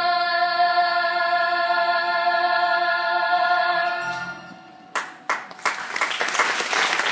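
A show's closing song with a singer and choir holding one long final note, which fades out about four seconds in. An audience then starts applauding, a few separate claps at first swelling quickly into full applause.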